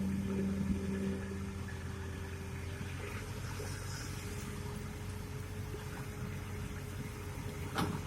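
Excavator's diesel engine running steadily, a little louder in the first second, with a single sharp knock near the end.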